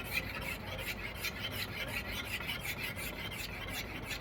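Hand sanding of a plastic headlight lens: quick back-and-forth rubbing strokes, about four a second.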